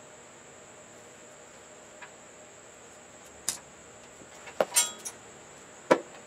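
A few sharp clicks and clinks of small metal parts and hand tools being handled while a part is fitted to a car's bumper; the loudest, a cluster of clinks about five seconds in, includes one that rings briefly. A faint steady high-pitched whine sits underneath.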